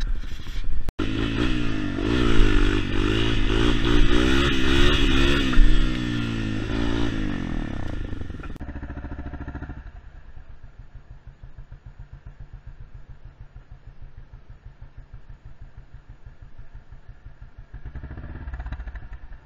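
Honda CRF250L's single-cylinder engine being ridden hard, its revs rising and falling loudly. About eight and a half seconds in, the sound cuts to a quieter dirt bike engine idling with an even beat, which picks up slightly near the end.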